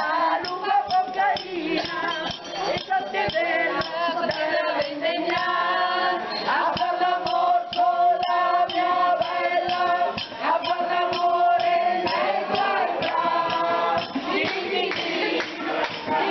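A group of people singing a song together, with hand-clapping keeping time throughout.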